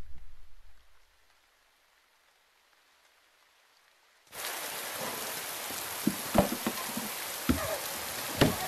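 Rain falling on a surface: a steady hiss with scattered drips and knocks that cuts in suddenly about four seconds in, after a fading low rumble and a few seconds of near silence.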